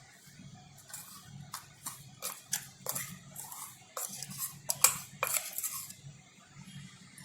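A metal spoon clinking and scraping against steel kitchen vessels in an irregular run of sharp clinks, the loudest about five seconds in, as ground sugar and cardamom are emptied from a mixer jar. A faint low hum runs underneath.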